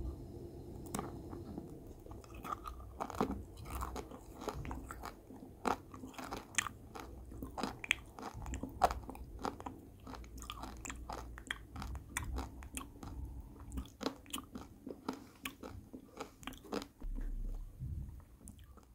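Close-miked crunching and chewing of a hard candy-shelled chocolate egg: many sharp, irregular crunches as the shell breaks between the teeth.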